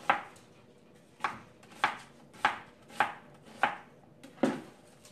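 Chef's knife chopping red onion on a plastic cutting board: seven slow, even chops, each a sharp knock of the blade on the board, a little over half a second apart.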